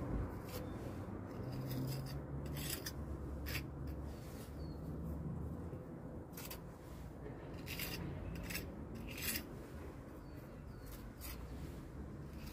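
Short, irregular scraping strokes of a slim metal pointing tool drawn along mortar joints between bricks and cobbles.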